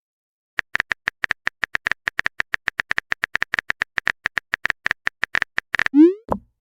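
Phone keyboard typing sound effect: a fast, even run of sharp taps, about seven a second, for roughly five seconds. Near the end, a short rising swoop and a pop, a message-sent sound.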